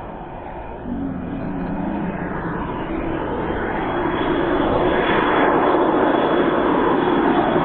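Twin model jet turbines (JetsMunt Merlin) of a giant-scale radio-controlled English Electric Lightning making a low pass: a rushing jet noise growing steadily louder as the model approaches, with a thin high whine coming in about halfway through.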